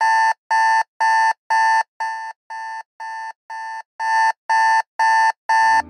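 Smartphone alarm beeping: twelve short, evenly spaced beeps, about two a second. The middle four are quieter, and then the beeping stops.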